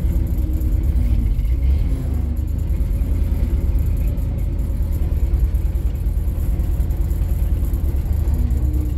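1977 Ford F600 grain truck's gasoline engine idling with a steady low rumble, heard from inside the cab as it warms up after a cold start.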